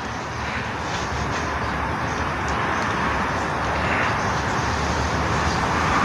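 Steady hiss of nitrogen gas flowing out of a cylinder through its regulator and hose, growing slowly louder as the valve is opened further. The gas is flushing leftover compressor oil out of an air-conditioner's high-side capillary lines.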